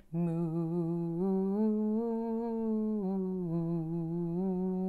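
A woman's unaccompanied voice holding one long, unbroken sung note in a slow Quaker chant. The pitch steps up about a second in and settles back down about three seconds in.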